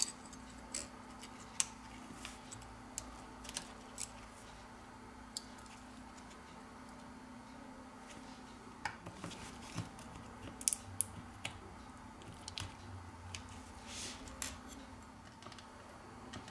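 Scattered small clicks and taps of a spudger and fingers handling a Huawei Mate 20's motherboard as it is pried up and lifted out of the phone's frame, over a faint steady hum.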